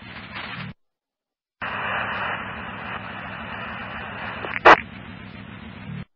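Fire department scanner radio channel keyed open with no voice: steady static hiss with a low background rumble, squelched to dead silence for under a second near the start, then back on with a sharp click about four and a half seconds in, and cut off abruptly near the end.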